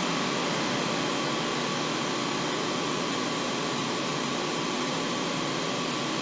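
Steady fan-like hiss with a faint, even high hum, unchanging throughout: background machine noise in a kitchen while an oven preheats.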